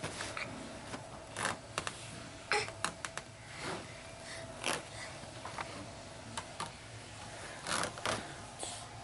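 A baby's hands patting and scraping against the mesh side of a playpen while she pulls herself up to stand: scattered soft taps and scrapes at irregular intervals, with a few louder ones along the way.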